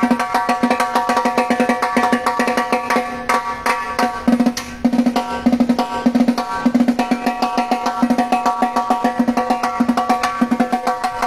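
Live band playing through a PA during a soundcheck: rapid, even percussion strokes over held tones and a pulsing low note.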